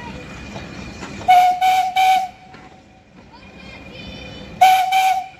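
Steam locomotive whistle sounding in short blasts, three close together and then two more about three seconds later, over the rumble of the train moving past.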